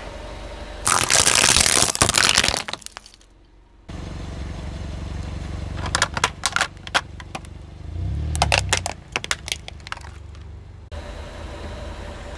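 Car tyre rolling over a row of Christmas ornaments, which crack and shatter in a loud burst of crackling about a second in. Later, a plastic toy dump truck cracks and snaps under the tyre in several clusters of sharp cracks.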